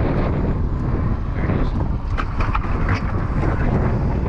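Wind buffeting the microphone, a steady low rumble, with a few brief sharp sounds about two to three seconds in.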